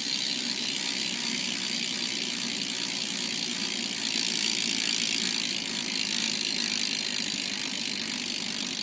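Demolition rear freecoaster/cassette hub on a BMX bike clicking as the wheel spins freely, a fast continuous buzz of pawls ratcheting that stops abruptly near the end.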